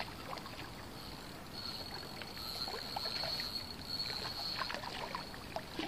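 Faint splashing and sloshing of water from a hooked Korean piscivorous chub being played and reeled toward the shore, with a thin high whine in the middle part.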